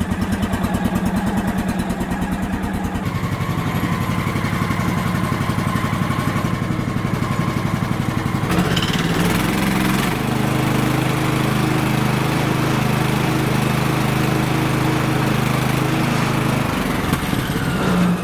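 Small gasoline engine of a Woodland Mills HM126 bandsaw sawmill running right after a cold start with the choke on, warming up. Its note shifts about 3 seconds in, again about 8 to 9 seconds in, and once more near the end.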